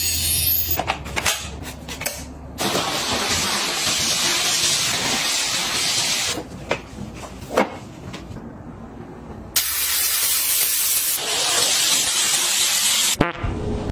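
Handheld steam cleaner jetting steam through its nozzle: a steady hiss lasting a few seconds at a time. It starts a couple of seconds in, stops about six seconds in, and comes back a few seconds later, with a few light clicks in the gaps.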